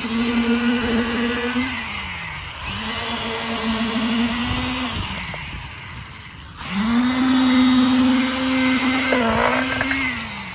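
A motor-driven power tool hums in three runs, each a few seconds long, and the pitch sags as each one winds down.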